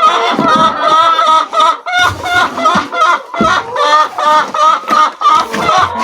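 A flock of chickens clucking, with many short calls overlapping continuously.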